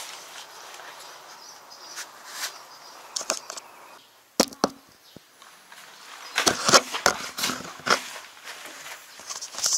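Irregular clicks, taps and knocks of hands handling a tractor's fuel filler cap and nearby parts after refuelling: a couple of sharp clicks about halfway through, then a busy run of knocks a second or two later and one more near the end. No engine is running.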